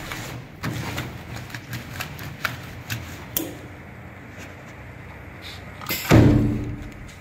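Handling noise as woven big-bag fabric is laid and smoothed on the bed of an automatic sewing machine: scattered light clicks and knocks, then one loud thump about six seconds in.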